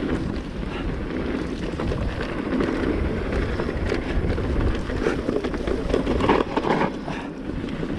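Wind buffeting an action camera's microphone as a mountain bike descends a dirt forest trail, with the tyres rolling over the dirt and the bike rattling over bumps and roots.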